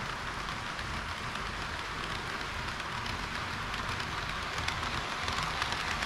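HO-scale model trains rolling on sectional track: a steady rattle of small metal wheels on the rails, with light clicks over the rail joints that come more often near the end.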